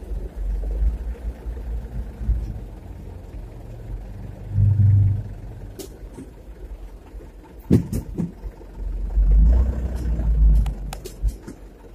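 Heavy diesel machinery of an excavator loading a dump truck with sand and gravel: a low rumble that swells twice, with a few sharp knocks in between.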